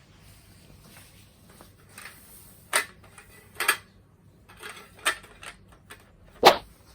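Small hard objects being handled and set down: a series of about half a dozen separate clinks and knocks, the loudest near the end.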